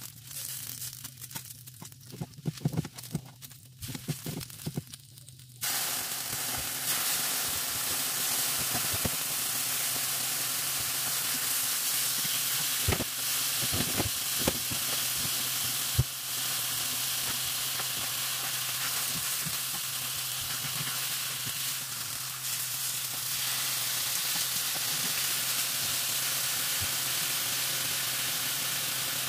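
Sliced pork sizzling in oil in a hot non-stick frying pan: a steady frying hiss that starts suddenly about six seconds in as the raw meat goes into the pan. Before it, light clicks of tongs against the pan, and a few sharp clicks again midway.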